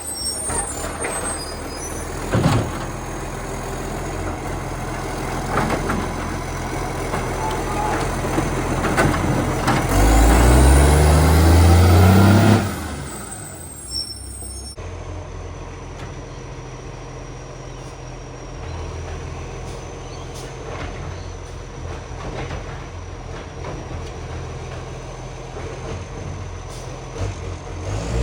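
Garbage truck diesel engine running, revving up about ten seconds in, loud for a couple of seconds, then dropping back to a steady idle. The revs are loud because of a leaking exhaust pipe.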